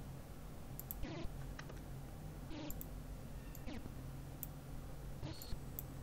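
Computer mouse clicks, half a dozen or so short sharp clicks spaced irregularly, over a faint steady low hum.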